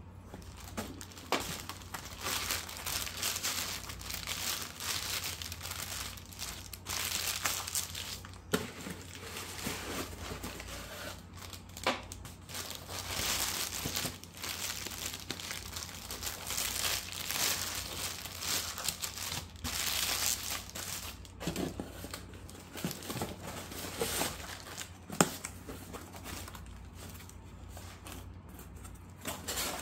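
Plastic air-column packing bags crinkling and rustling as they are handled and pushed into a cardboard box, with a few sharp knocks along the way.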